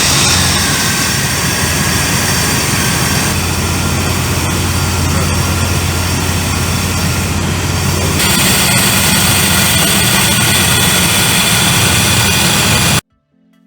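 Chevrolet Astro van engine running steadily just after start-up, fitted with a new belt tensioner and serpentine belt to cure a noise the owner blamed on the old tensioner. The sound cuts off suddenly near the end.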